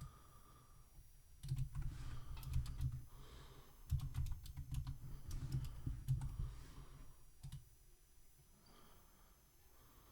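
Typing on a computer keyboard: a run of rapid key clicks starting about a second and a half in and stopping about seven seconds in.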